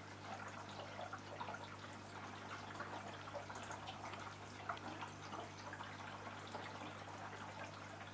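Water in an aquarium tank trickling and dripping steadily, with many small splashes, over a steady low hum.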